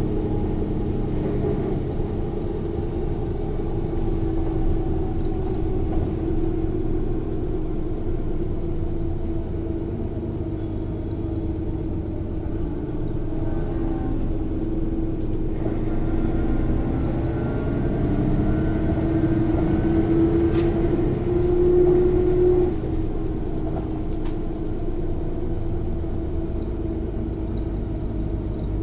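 Inside a Mercedes-Benz O 405 N1 low-floor city bus under way: its loud diesel engine drones steadily over the quieter automatic gearbox, with the rear-axle differential clearly audible. About three-quarters of the way through the drone climbs in pitch for a couple of seconds and then drops abruptly, as at a gear change.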